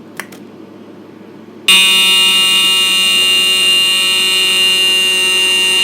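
A brief click, then about a second and a half later a fire alarm starts sounding, loud and steady without a break.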